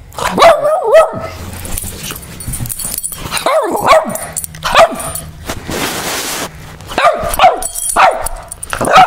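Boston terrier barking up close in angry bursts, about eight barks in twos and threes.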